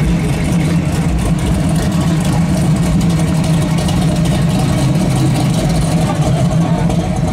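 Car engines running at low speed, a steady low rumble as vehicles roll slowly through a lot.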